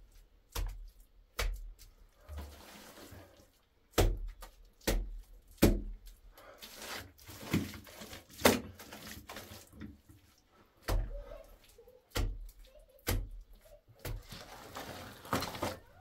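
Handfuls of wet mud slapped by hand onto a wall: a series of dull, wet thuds about one a second, with a pause about nine seconds in and some scraping between them.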